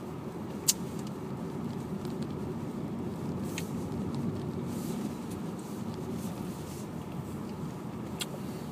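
Car driving on a road, heard from inside the cabin: steady engine and road noise. A few sharp clicks stand out, the loudest less than a second in.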